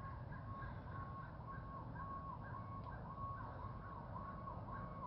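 Distant emergency vehicle's electronic siren, faint, its tone sweeping up and down in a quick repeating cycle about twice a second.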